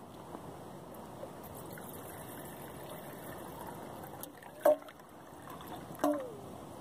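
Water being poured into a small metal cook pot, a faint steady trickle, with two sharp knocks about a second and a half apart near the end.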